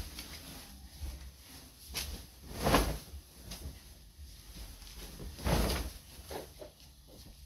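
Bedspread swishing and rustling as it is shaken out and flung over a bed, with two louder whooshes of the fabric, the first about a third of the way in and the second a few seconds later.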